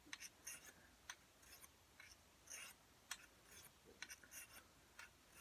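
Faint, short scrapes of a dagger blade stroked across a fine oiled sharpening stone, about two strokes a second.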